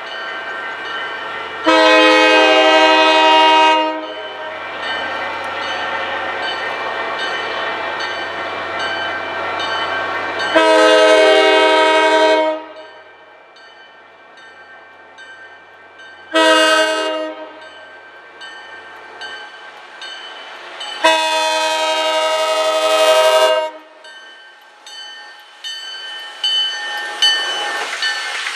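MBTA commuter-rail diesel locomotive's air horn blowing the grade-crossing signal: long, long, short, long, each blast several notes together. A crossing bell rings steadily underneath. Near the end the locomotive's engine and wheels come up loud as it reaches the crossing.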